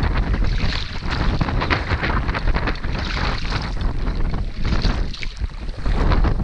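Wind noise on the microphone, with the splash of a double-bladed kayak paddle dipping into choppy water every second or so as the kayak is paddled along.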